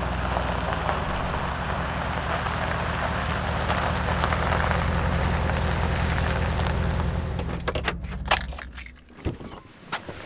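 Chevrolet Silverado pickup truck's engine running steadily as the truck rolls slowly over a dirt and gravel clearing. The engine is shut off about eight and a half seconds in, followed by a few sharp clicks and knocks.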